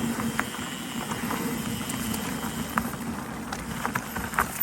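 Electric mountain bike ridden over a forest trail: tyres rolling over dirt with a steady low hum, broken by scattered clicks and rattles, and a louder knock near the end.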